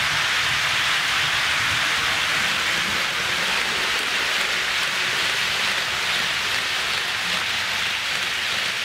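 HO scale model freight train rolling past on sectional track laid on a wooden floor: a steady rushing noise of many wheels running on the rails.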